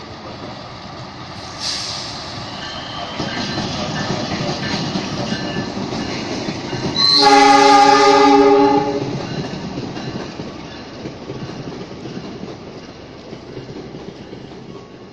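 Train passing through a station: running and wheel noise builds up, then a train horn sounds one loud, steady blast of about two seconds, roughly seven seconds in. The rail noise then fades away.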